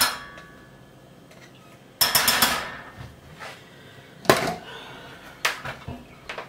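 A metal saucepan and utensils clinking and knocking on an electric stovetop: a sharp clink with a short ring at the start, a longer clatter about two seconds in, then several single knocks.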